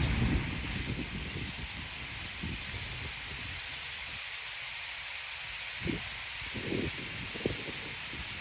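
Tens of thousands of starlings chattering together at their roost, blending into one steady hissing wall of sound. Gusts of storm wind buffet the microphone now and then.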